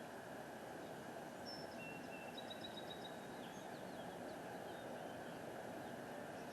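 A bird gives a short run of high chirps and brief whistled notes from about one and a half to three and a half seconds in, over steady faint background noise.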